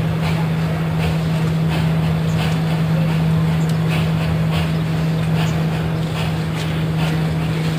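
Distant Orenstein & Koppel 0-8-0 narrow-gauge steam tank locomotive working slowly, its exhaust beats a regular run of chuffs. Under it runs a loud steady low hum.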